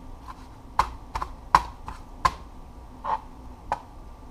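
Kitchen knife chopping herbs on a plastic cutting board: about ten sharp, uneven knocks of the blade striking the board.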